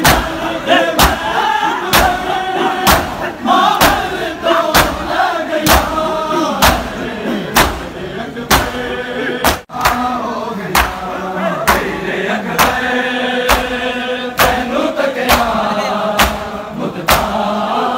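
A crowd of men doing matam, slapping their bare chests in unison at roughly one beat a second, while voices chant a noha lament over the beat. The sound drops out for an instant near the middle.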